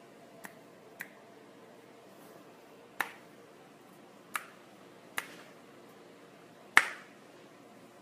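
Fingers snapping, six sharp snaps at uneven intervals, the last the loudest, over a faint room hum.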